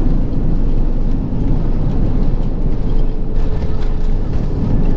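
Airbus A321 cabin noise on the ground just after landing: a loud, steady, deep rumble of the engines and rolling wheels. A faint steady tone comes in about three seconds in.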